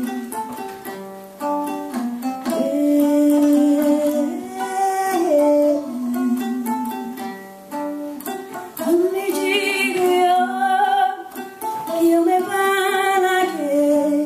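A woman sings into a microphone over a small skin-bodied lute, plucked in quick short notes. Her melody has long, wavering held notes in the second half.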